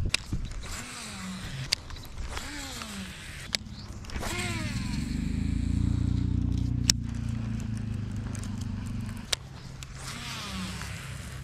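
Sharp clicks from handling a baitcasting rod and reel, with a low, steady motor-like hum for several seconds in the middle.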